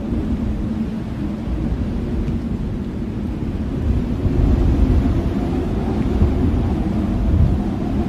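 Blizzard wind blowing: a steady low rushing roar of storm wind that gusts a little stronger about halfway through.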